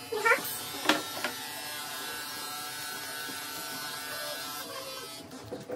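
Electric dog grooming clippers running with a steady buzz while trimming the fur on a dog's feet, cutting off near the end. A brief voice sound and a sharp click come in the first second.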